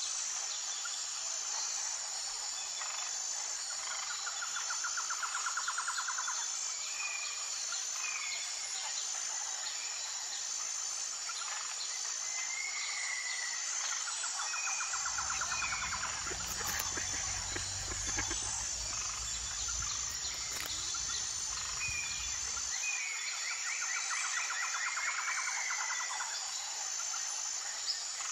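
Nature ambience: a steady, high-pitched insect chorus with an even pulse, with birds trilling and chirping every several seconds. A low rumble comes in near the middle and stops after about eight seconds.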